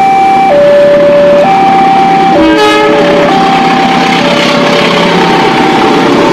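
Vehicle horn playing a two-note call, a higher and a lower note switching back and forth about once a second, with a short, buzzier, lower horn blast a little over two seconds in.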